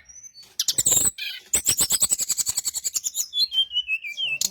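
Brown-chested jungle flycatcher singing: a fast, high trill of repeated chips, then a short run of whistled notes stepping down in pitch near the end.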